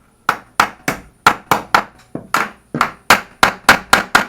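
A tight-fitting wooden board being struck again and again to drive it into place, about sixteen sharp blows at three to four a second, coming faster in the second half. The board resists: it is a tight fit.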